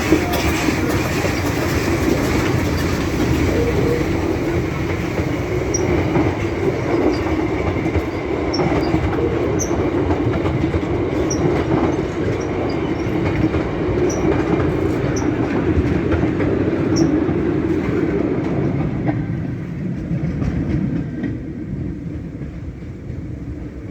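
Steam tram train hauled by three steam tram locomotives, running along the track with a steady mechanical rumble and the clatter of wheels on rail, fading away over the last few seconds as it moves off.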